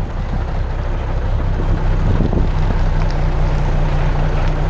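MAN truck's diesel engine pulling away under load; its low, steady note firms up and grows a little louder about two seconds in.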